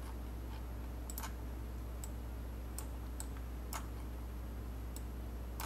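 Sparse, irregular light clicks from a computer keyboard and mouse, about nine in all, over a steady low electrical hum.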